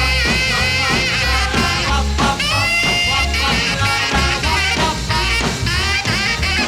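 Early-1960s rock-and-roll record playing between sung lines: a steady dance beat over bass, with a high wavering melody line that holds one long note about two seconds in.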